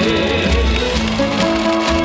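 Instrumental interlude of a trot song between sung lines: backing music with sustained pitched chords over a steady bass line and no singing.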